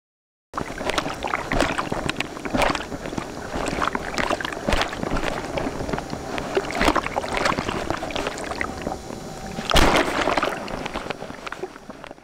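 Windsurf board planing over choppy sea: rushing water and spray with repeated slaps of the board on the chop, the heaviest slap about ten seconds in. The sound starts abruptly about half a second in and cuts off at the end.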